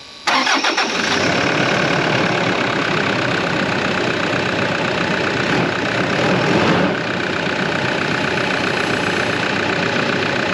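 Toyota Prado 150 series diesel engine cranking and catching almost at once, then idling steadily, with a brief swell about six seconds in. It starts cleanly on a freshly changed and hand-primed fuel filter.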